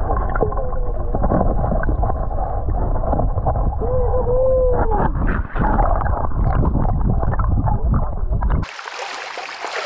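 A dog whining in drawn-out tones that rise and fall, over a heavy low rumble. Near the end the sound cuts suddenly to a steady rush of running water.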